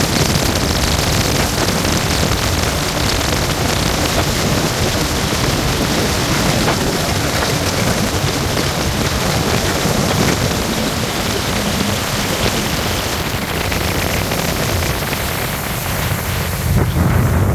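Jet ski running across a lake, heard as a steady, loud rush of wind on the microphone mixed with engine and water noise; the low rumble swells near the end.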